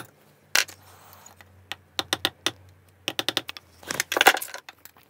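Sharp metal clicks and taps of a small steel hand tool working the crimped tabs of a motorcycle ignition switch clamped in a steel vise, prying its back cover loose. There is a louder burst of clattering about four seconds in.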